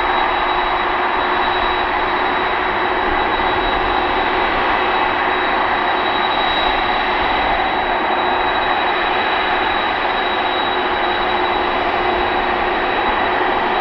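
Boeing 747-400 freighter's four jet engines running at taxi idle: a steady whine with fixed high tones over an even rush, unchanging throughout.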